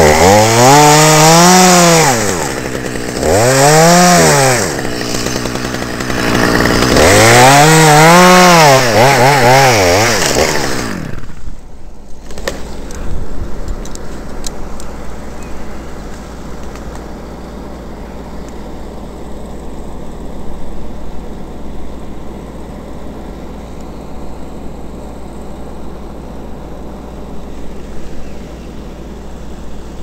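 Chainsaw revving through cuts in an ash tree's limbs, its engine pitch rising and falling in three long swells before it stops suddenly about eleven seconds in. After that only a quieter steady background with a few light knocks.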